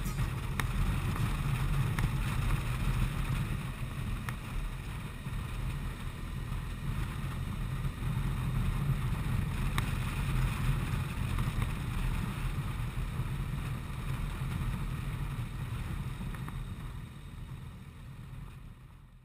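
Motorcycle running on the road with wind rumbling across the camera's microphone, a steady low noise that fades out near the end.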